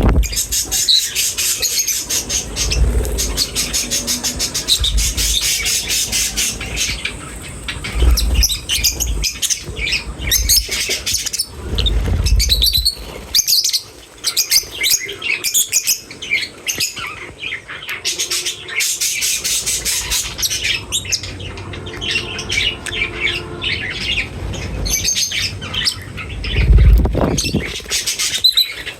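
A flock of small birds chirping rapidly and without pause, with calls overlapping, and a few low thumps now and then.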